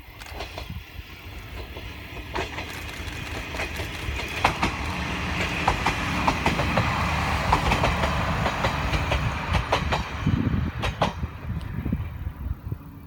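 Isumi Railway KiHa 52 and KiHa 28 diesel railcars passing, their wheels clicking over the rail joints above a steady rumble. The sound builds over the first few seconds, is loudest in the middle, and fades near the end.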